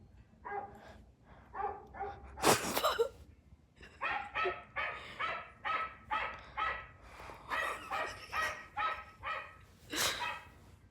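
Dog barking: a long run of short, sharp barks, about two a second, with a louder, harsher burst about two and a half seconds in and another near the end.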